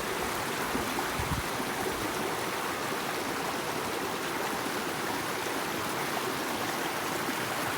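Running water, an even, steady rush that does not let up.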